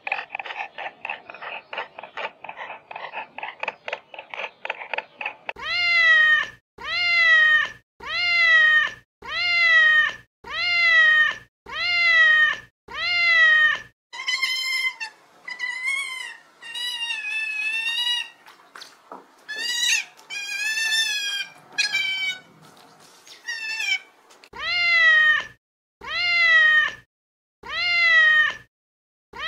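Cat meowing over and over, about one meow a second, each rising and then falling in pitch. Through the middle stretch the calls turn higher and shorter. It opens with a few seconds of rapid pulsed chatter before the meows begin.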